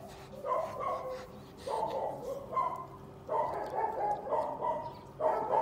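A dog vocalizing in a string of about five pitched whining calls, each up to about a second long with short gaps between.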